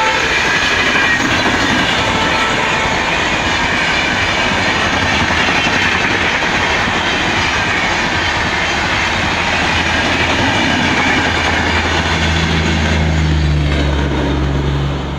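A diesel-hauled passenger train rushing past, with a steady roar of wheel and rail clatter. Horn tones die away at the start and come back faintly about two seconds in. A low hum grows near the end before the sound cuts off suddenly.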